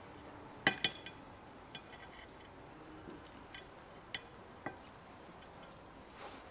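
Light clinks of cutlery and tableware against ceramic plates during a meal: a sharp double clink just under a second in, then several fainter single clinks spread through the rest.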